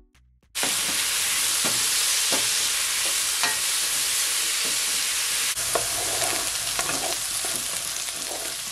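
Potato pieces frying in hot olive oil in a pot: a loud, steady sizzle that starts suddenly about half a second in, with a few light knocks from stirring.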